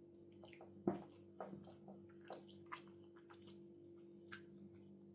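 Quiet eating sounds at a table: chewing and lip smacks with short clicks, the sharpest about a second in and a few more in the next two seconds, over a faint steady hum.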